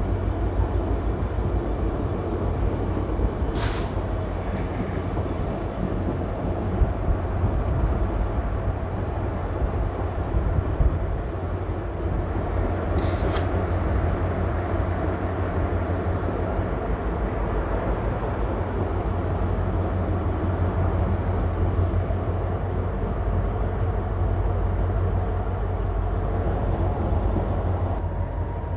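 Passenger train coach running along the track, heard from its open doorway: a steady rumble of wheels on rails with a faint high whine. Two sharp clicks stand out, about 3.5 and 13 seconds in.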